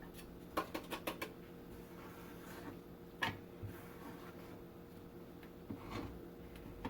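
A few light clicks and taps of kitchen handling as thin grated green plantain slices are gathered and tipped into a bowl: a quick cluster of clicks about a second in, one sharper tap about three seconds in, and a couple of softer ones near the end.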